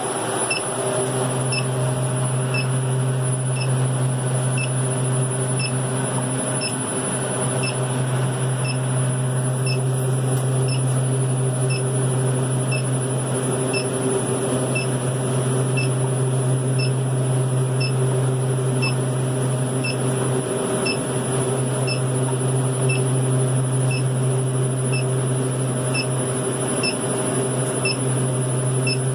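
Steady low hum of a running walk-in freezer refrigeration unit, with faint, evenly spaced electronic ticks, about three every two seconds, holding a constant rate, as an electronic refrigerant leak detector makes while it finds no leak.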